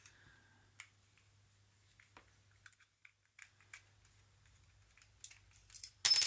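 Small metal clicks and taps of an old English lever padlock being handled and taken apart, scattered at first, with a louder clatter of metal parts near the end.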